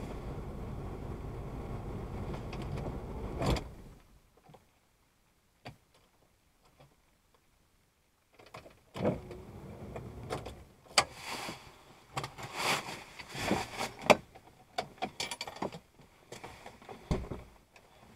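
Car engine idling, heard from inside the cabin, switched off with a click about three and a half seconds in. After several seconds of quiet, a run of irregular clicks, knocks and rustling of someone moving about inside the parked car.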